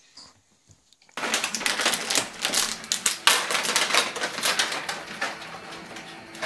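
A packet crinkling and crackling as it is handled. It starts suddenly about a second in as a dense run of sharp crackles and goes on, a little softer near the end.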